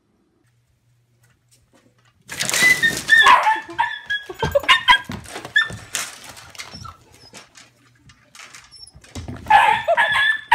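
Puppy yipping and barking in a run of short, high-pitched yelps, starting about two seconds in, easing off, then another burst near the end.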